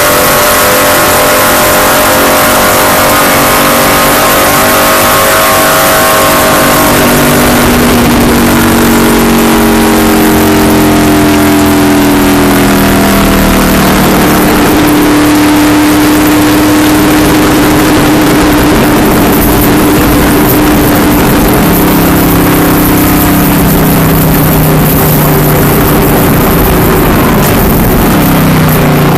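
Race car engine running hard, heard loud from inside the car. Its pitch slides down and up several times as it revs and changes speed, over a steady rushing noise.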